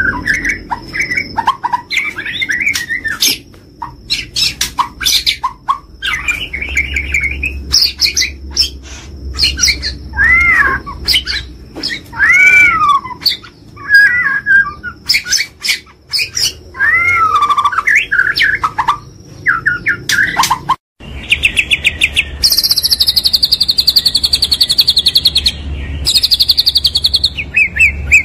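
Murai batu (white-rumped shama) in full song: a varied run of loud whistled and slurred phrases mixed with sharp clicking notes. After a short break about 21 seconds in, it switches to fast, high rattling trills.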